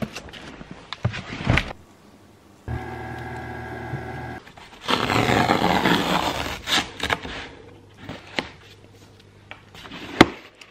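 A cardboard box's tear strip being ripped open: a loud, even tearing for about two seconds, followed by light taps and handling of the box with one sharp click near the end. Before it, a steady hum for about two seconds.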